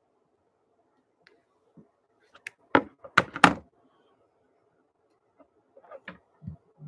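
Three sharp knocks in quick succession about three seconds in, with a few faint taps and bumps before and after: hands knocking against the desk or computer close to the microphone.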